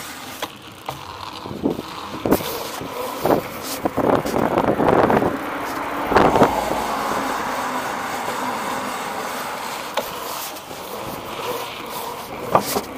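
A knobby tyre rolls along a concrete sidewalk over a steady background rush. Irregular knocks and rattles sound as it crosses cracks and slab joints.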